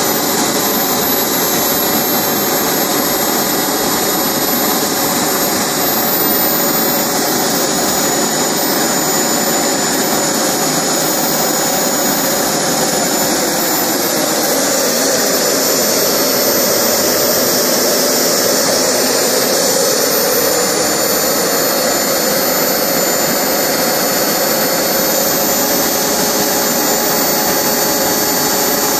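Small PSTJETS turboshaft turbine driving a generator, running steadily: a loud jet rush with a thin high-pitched whistle over it. A lower tone in the sound sags for several seconds about halfway through, then comes back up.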